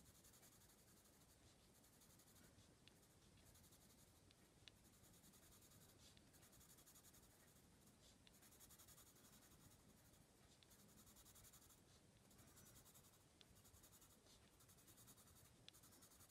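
Faint scratching of a graphite pencil on card in quick, repeated short shading strokes, with a few light ticks of the point.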